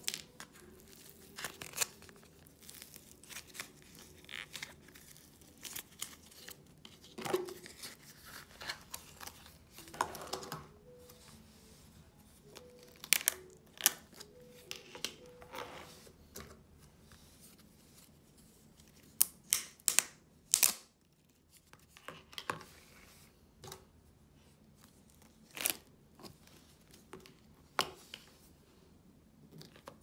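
Air-dry clay being pulled and squished in a plastic tub, with scattered sharp clicks and snaps of plastic tubs and lids being handled, some in quick clusters.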